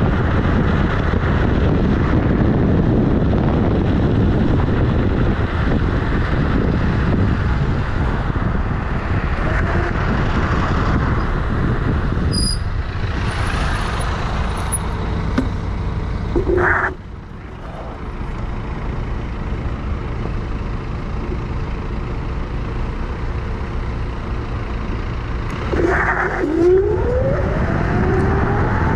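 Wind and road noise from a Kugoo G-Booster electric scooter riding along a city road, heard from a camera beside its front wheel, with traffic around. The noise drops suddenly a little over halfway through as the ride slows, then builds again, with a rising whine near the end.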